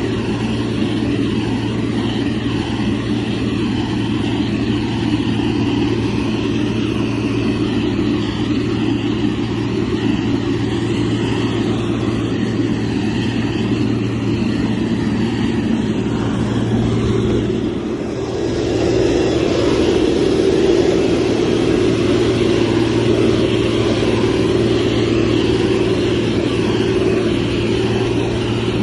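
Heavy diesel engine of a motor grader running steadily. About two-thirds of the way through it dips briefly, then comes back a little louder.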